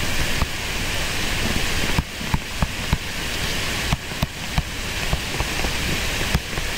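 Steady hiss, with scattered light ticks of a stylus tapping and dragging on a tablet screen as handwriting is written.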